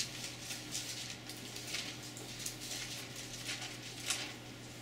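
Thin Bible pages being leafed through: a run of soft, irregular paper rustles and flicks, over a faint steady low hum.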